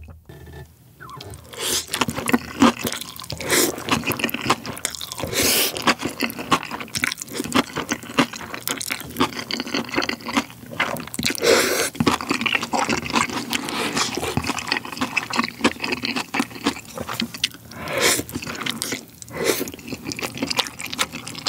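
Close-miked slurping and chewing of saucy black-bean instant noodles (Chapagetti) with kimchi: a steady run of wet smacks and small clicks, broken by several louder slurps.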